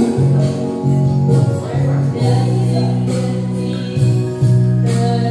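Karaoke: a woman singing into a handheld microphone over recorded backing music.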